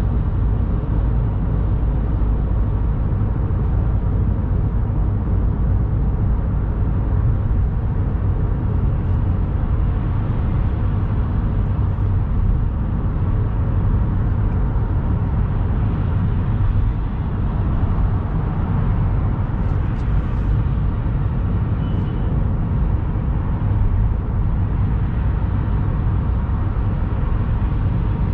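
Steady road noise of a car cruising on an expressway, heard from inside the cabin: a constant low rumble of tyres and engine with no change in pace.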